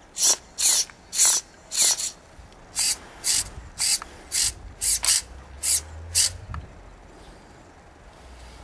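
Recoil pull-starter on a nitro RC buggy's glow engine, pulled in quick short strokes: about a dozen rasping pulls, roughly two a second, stopping about six seconds in, with the engine not firing.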